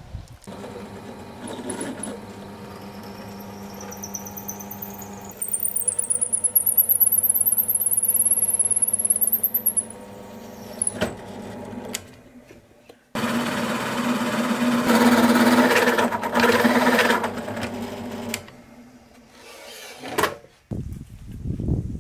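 Bench drill press: the motor hums steadily and the bit drills into wood in two louder spells with a short pause between them. The running stops near the end.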